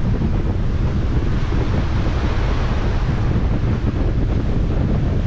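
Wind buffeting the microphone on a moving ferry's deck, a steady low rumble, over the rush of sea water.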